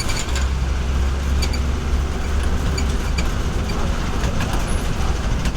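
BEST city bus engine running with a steady low rumble, with a few short clicks and rattles.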